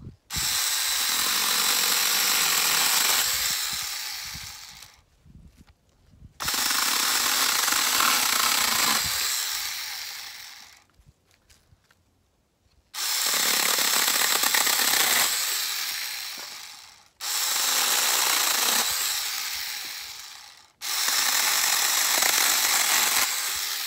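Small cordless mini chainsaw cutting thin branches in five separate bursts, each a few seconds long. The motor comes up to speed at once on the trigger and winds down as it is released between cuts.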